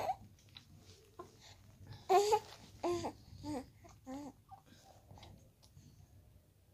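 A baby cooing and babbling: one louder coo about two seconds in, then a few shorter coos in quick succession.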